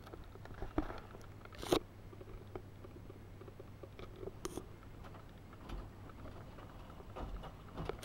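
Miele front-loading washing machine in its first rinse, the drum turning a wet duvet: a low steady hum with scattered crackles and a few sharper knocks.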